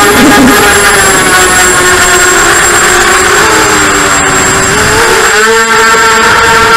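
Emax 1806 2280kv brushless motors spinning HQ 5045 bullnose propellers on an FPV racing quadcopter, a loud buzzing whine heard from the onboard camera. The pitch sags slowly, then rises quickly about five seconds in as the throttle changes.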